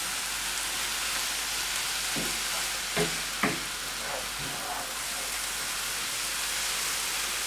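Mushrooms and onion frying in sunflower oil in a pan: a steady sizzle, as the water from the freshly washed mushrooms is almost cooked off. A few short sounds stand out briefly between about two and four and a half seconds in.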